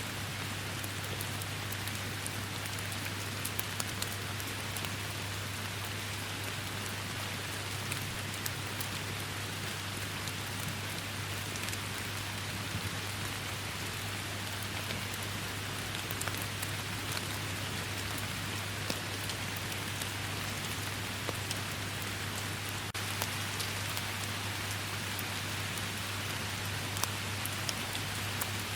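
Steady heavy rain hissing, with individual drops ticking sharply through it and a steady low rumble underneath.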